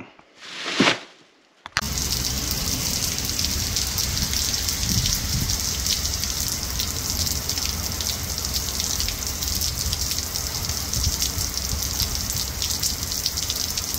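A brief rush of noise, then from about two seconds in steady rain: an even hiss with scattered patter of drops.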